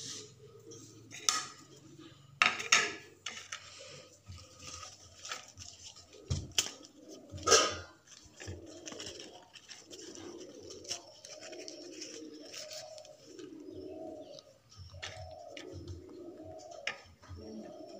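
Crackling and crinkling of a griddle-roasted banana-leaf parcel being torn open, with a few sharp crackles in the first half. From about halfway a pigeon coos repeatedly, roughly once a second.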